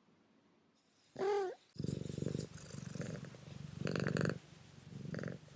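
Domestic cat: a short pitched call a little over a second in, then close-up purring that swells and fades about once a second with each breath.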